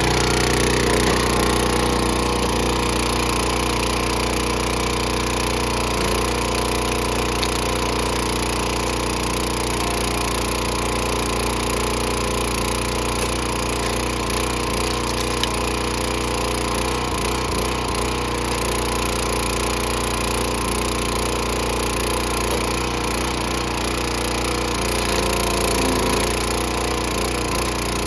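Small gasoline engine of a Dirty Hand Tools 30-ton log splitter running steadily, with a slight rise in level near the end.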